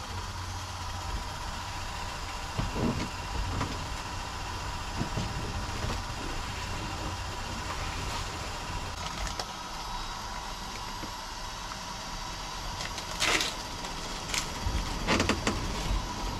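A wooden stick stirring two-component epoxy paint in a tin, with scattered knocks and scrapes against the tin; the loudest clatter comes about 13 seconds in. A steady low machine-like hum runs underneath.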